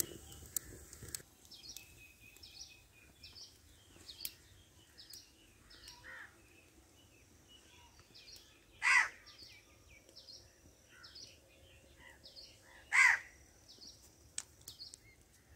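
A crow cawing twice, about four seconds apart, over frequent high chirps of smaller birds.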